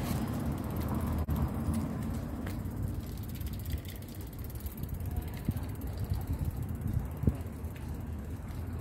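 Outdoor street background noise: a steady low rumble with a few faint clicks and knocks, the sharpest about seven seconds in.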